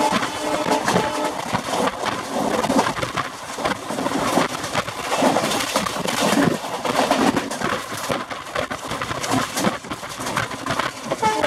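Rushing, clattering noise of an express passenger train running at about 110 km/h, heard from its open coach door: wheels rattling over the rails, mixed with rushing wind.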